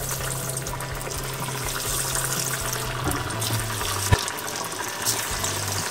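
Semolina-coated potato-and-poha donuts sizzling steadily in hot oil in a kadhai, deep frying just after they go in. A single sharp click comes about four seconds in.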